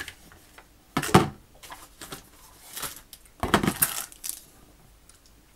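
A black plastic self-heating hotpot container and the heating-pack packet inside it being handled. There is a sharp knock about a second in, then a longer rattling clatter and rustle at about three and a half seconds.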